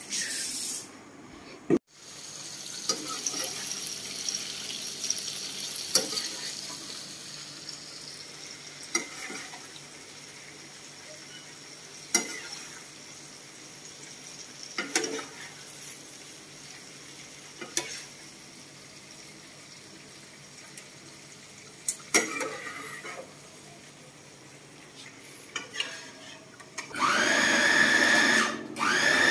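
Food frying in hot oil in a wok with a steady hiss, and a metal strainer ladle knocking against the pan every few seconds. Near the end a small electric food chopper starts in short pulses, its motor whine rising at each start as it grinds chillies into chilli paste.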